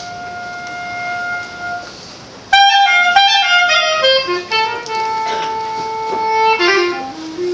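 Solo clarinet playing a slow melody. A held note fades away, then about two and a half seconds in the clarinet comes in loudly with a quick run of falling notes and settles into long held notes that step lower toward the end.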